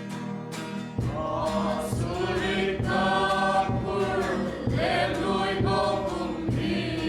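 Gospel worship song: strummed acoustic guitar, then singing begins about a second in with a fuller accompaniment underneath.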